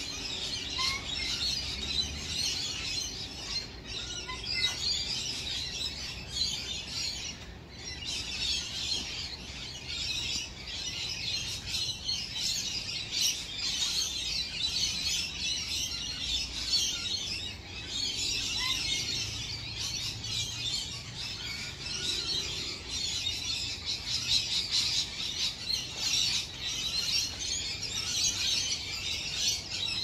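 Wild lorikeets and other wild birds chattering in a dense, continuous high-pitched chorus.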